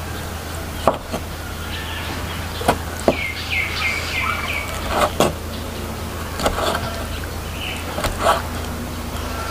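A cleaver chopping cooked pig's-head meat on a wooden cutting board: about ten sharp knocks at an uneven pace, sometimes two in quick succession.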